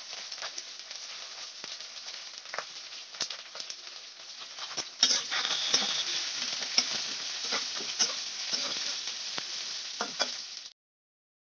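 Cubed brinjal frying in hot oil in a kadai, sizzling steadily. About halfway through a spatula starts stirring, the sizzle gets louder and is dotted with clicks and scrapes against the pan; the sound cuts off abruptly near the end.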